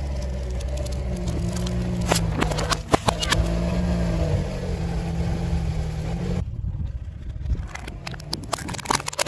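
A car's engine running as its tyre rolls over and crushes objects on asphalt: a few sharp cracks about two to three seconds in, then a dense run of crackling and crunching in the last few seconds.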